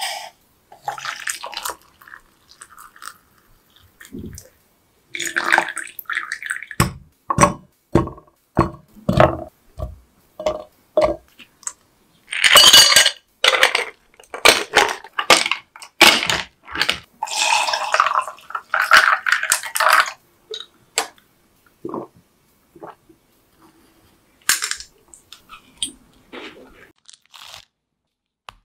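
Kitchen food-preparation sounds: a run of sharp knocks and clinks of ingredients and utensils on a plastic cup, with louder bursts of rustling, pouring noise about halfway through.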